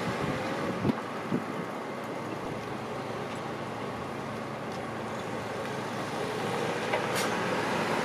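Road traffic: cars driving over the level crossing, with two short knocks about a second in. It grows louder near the end as a car comes close.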